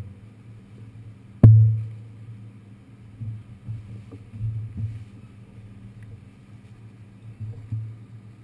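Steady low hum of a subway car. About a second and a half in there is one sharp, loud metallic clank, and several softer knocks and thumps follow.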